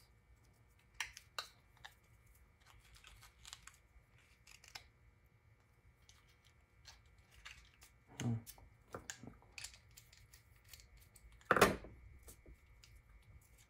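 Scattered light clicks and rubbing as small clamps are shifted along a voice-coil former on a metal winding spindle, with a sharper knock about eight seconds in and a louder one about eleven and a half seconds in.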